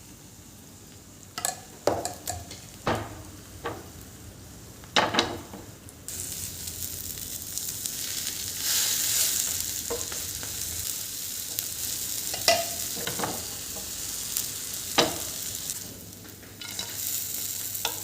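Food frying in a pan: a steady sizzle starts suddenly about six seconds in, after a run of sharp knocks, and utensil knocks against the pan sound over it.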